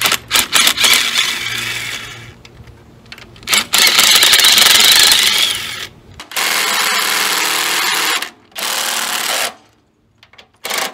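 Cordless impact driver running out 9/16 bolts on a transmission, in about four runs of a few seconds each with short pauses between; the first run is a rapid hammering rattle.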